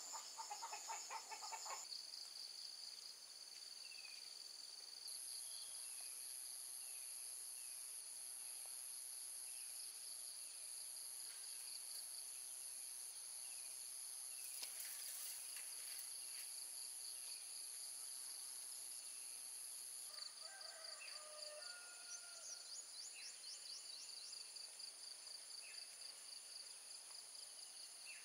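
Steady, high-pitched drone of insects in several layers at once. A chicken clucks in the first two seconds, and short bird chirps repeat about once a second for a while.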